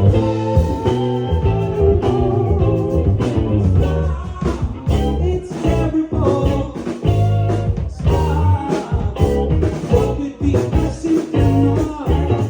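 Live band playing a song: electric guitar and bass over steady drum hits.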